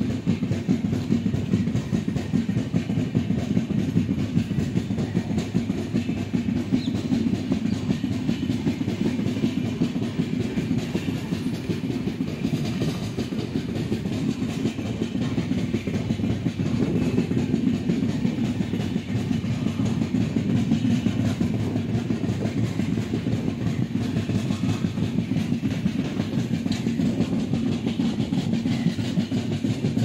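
Passenger train running along the track, heard from aboard: a steady rumble and clatter of the wheels on the rails.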